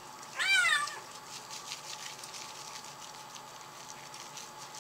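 A wet kitten meows once, loudly, the pitch rising then falling, in protest at being given a medicated shampoo bath.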